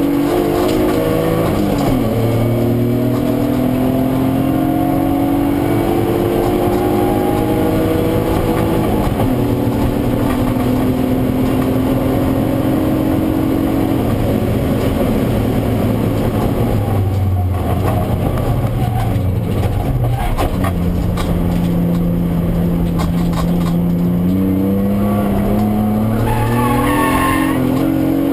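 BMW E36 323ti's 2.5-litre straight-six heard from inside the cabin, pulling hard up through the gears. Its pitch climbs, drops back at each shift and climbs again. It falls to a lower, rougher note in the middle, then rises steeply again near the end.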